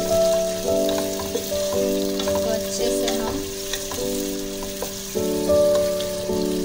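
Sliced onions sizzling in hot oil in an aluminium pot, stirred with a spoon, at the early half-cooked stage of frying. Background music of held keyboard chords, changing about once a second, is louder than the frying.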